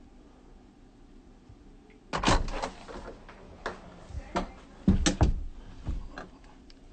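A run of door knocks and bangs: a loud pair about two seconds in, scattered single knocks, then another loud cluster around five seconds in.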